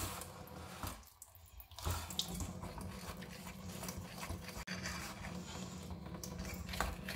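Kitchen tap opened only a little, running a thin stream of water into a stainless steel sink, with the light clicks of a fork stirring batter in a ceramic bowl.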